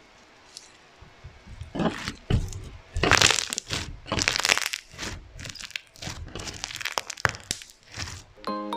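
Handmade slime being squeezed and worked by hand, giving irregular bursts of crackling and crunching. A chiming music tune starts near the end.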